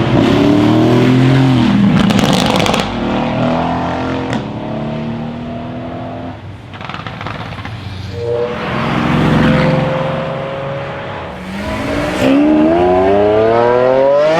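Straight-piped twin-turbo V8 of a tuned Mercedes-AMG GT S accelerating hard: the engine note climbs and falls, with a quick burst of exhaust crackles about two seconds in. Near the end the note sweeps steeply up again under hard acceleration.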